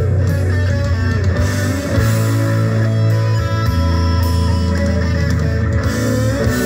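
Guitar-led rock music with a strong bass line, played through Sanyo SX-W011 bookshelf speakers driven by a Sony TA-70 amplifier.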